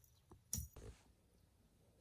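A kitten playing with a fluffy wand toy on a wooden floor: one short knock about half a second in, then a brief rustle, otherwise quiet.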